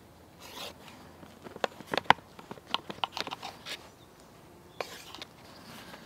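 A knife slicing lengthwise through a rolled log of bread dough, its blade ticking and scraping against the metal board beneath in a run of irregular sharp clicks. The loudest click comes about two seconds in.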